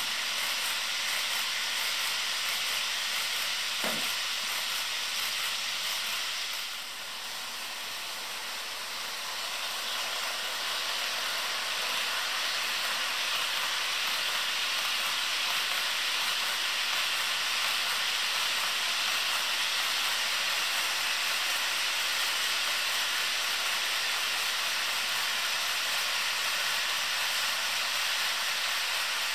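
HO scale model freight train rolling past on its track, the metal wheels on the rails making a steady hissing rolling noise.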